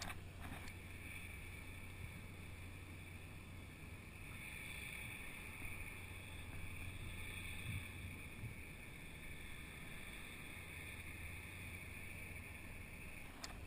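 Steady wind rumble and hiss on the camera microphone over open water, with a couple of brief clicks near the start and near the end.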